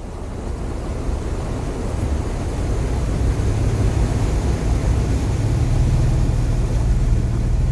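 Toyota Tacoma pickup's engine running at low speed as the truck drives through a shallow creek ford, with water splashing up around the tyres and the creek rushing by. The sound grows steadily louder as the truck comes through the water.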